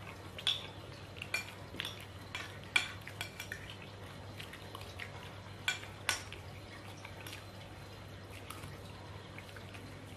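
A spoon clinking and scraping on a ceramic plate during a meal: a scattered string of light clicks, thinning out after about six seconds, over a low steady hum.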